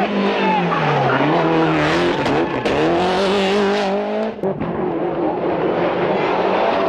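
Rally car engines at full load: one engine's pitch drops for about a second, then climbs steadily as the car accelerates, before a sudden change about four and a half seconds in to another car's engine running at a steadier high pitch.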